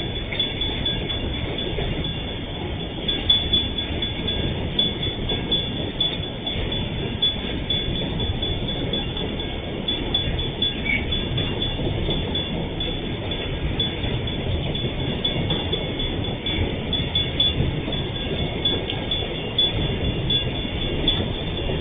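Freight train of empty flatcars rolling past: a steady rumble and clatter of steel wheels on the rails, with faint high squeals now and then.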